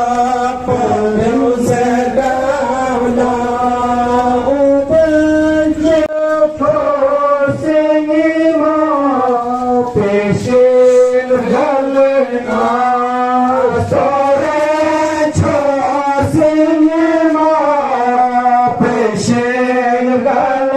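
A male voice chants a Muharram mourning lament (nauha) in long, drawn-out melodic phrases. A low background hum stops abruptly about six seconds in.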